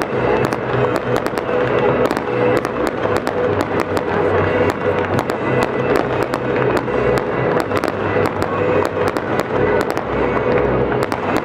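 Fireworks going off in a rapid, irregular string of bangs and crackles, over loud music.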